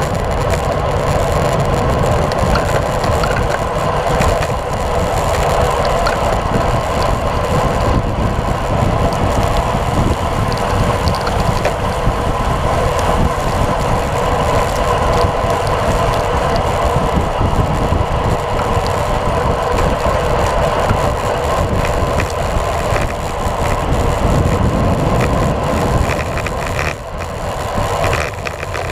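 Steady rush of wind over a bike-mounted action camera's microphone as a road bike is ridden at speed, mixed with tyre noise on wet asphalt. The level dips slightly near the end.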